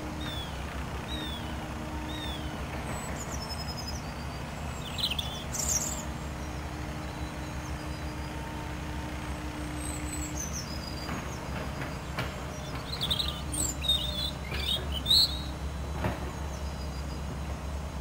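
Steady low drone of machinery working on a pond, with a European robin singing short, high, thin phrases every few seconds over it.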